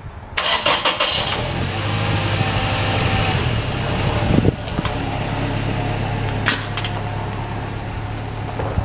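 A vehicle engine starts about half a second in and then idles steadily, with a sharp knock partway through.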